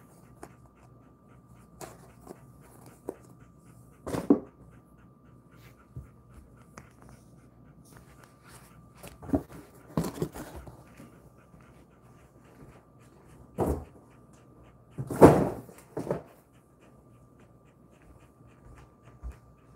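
A Jindo-mix dog panting quietly, with a handful of short knocks and rustles at irregular moments. The loudest comes about fifteen seconds in. A faint steady high hum runs underneath.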